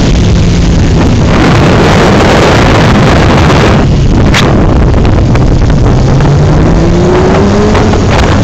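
Motorcycle engines running under heavy wind noise on the microphone from moving at road speed. Near the end one engine rises steadily in pitch as it accelerates.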